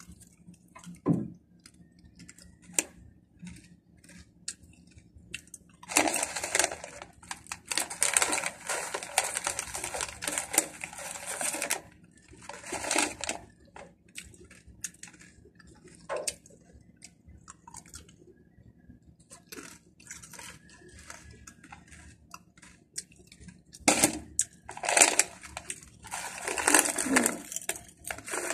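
Crunchy snack chips being chewed, along with the crinkle of a foil snack bag being handled. The crackling comes in bursts of several seconds with quiet gaps between.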